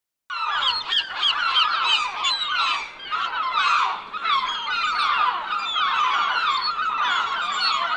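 A flock of gulls calling together, many overlapping short, falling cries.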